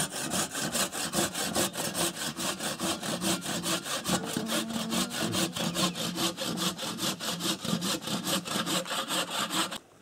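Izhevsk crosscut hand saw cutting wood with quick, regular strokes, stopping near the end.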